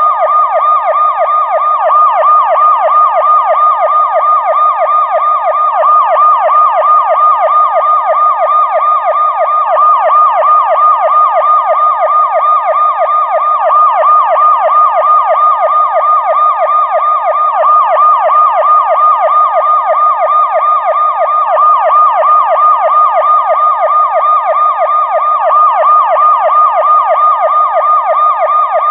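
Police car siren on a fast yelp, its pitch sweeping rapidly up and down several times a second without a break.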